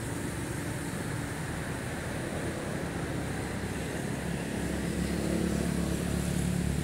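Passing motor-vehicle traffic: a steady road noise, with a vehicle engine's low hum growing louder about four and a half seconds in.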